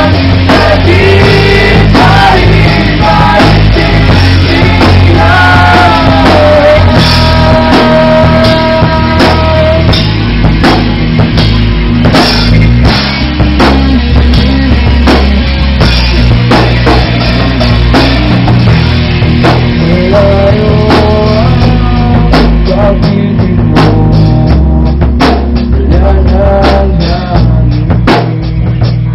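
Amateur rock band playing loud, live in a small room: electric guitars and drum kit, with a male singer's voice over the first third and then mostly instruments with sharp drum hits.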